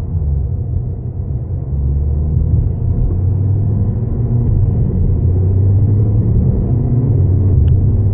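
Audi A6 (4G) TDI quattro on the move with a low, steady rumbling drone whose pitch wavers a little, the noise the owner puts down to a defective wheel bearing.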